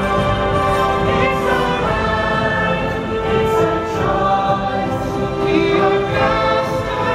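Orchestral show music with a choir singing long held notes.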